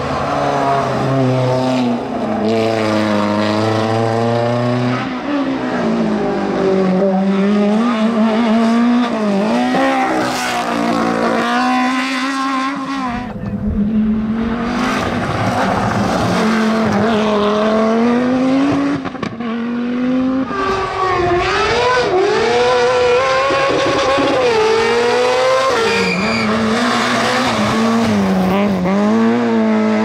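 Hillclimb rally cars run flat out one after another, each engine revving up and dropping back through rapid gear changes. A Renault Clio comes first, an Audi Sport quattro S1 Group B car follows from about halfway through, and a small blue hatchback runs near the end.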